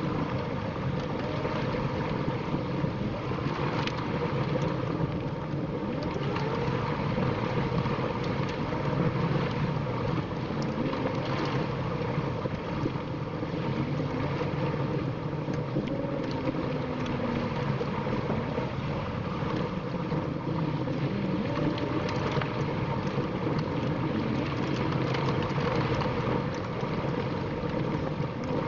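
A vehicle driving slowly along a dirt road: steady engine and tyre rumble, with scattered short clicks and rattles.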